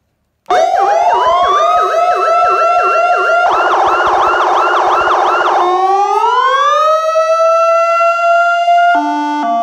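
Aosen Q7 electronic siren sounding through its loudspeaker, cutting in about half a second in and stepping through several tones: a fast warble, a faster chirping yelp, a slow rising wail, and near the end a stepped alternating two-tone pattern.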